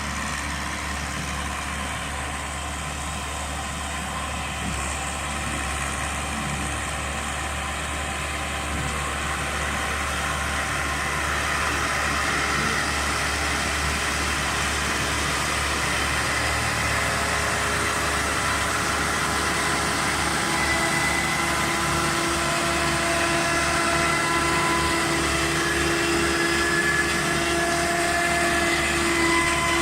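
Lovol H754 tractor's diesel engine running steadily while it mows with a rear mower, growing slightly louder, with steady whining tones coming in about halfway through.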